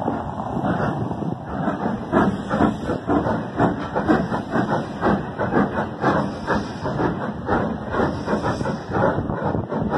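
Two steam locomotives double-heading a train, a tank engine and LMS Black Five 45212, working hard. From about a second and a half in, a fast, uneven run of exhaust chuffs from the two engines sounds over a steady hiss of steam.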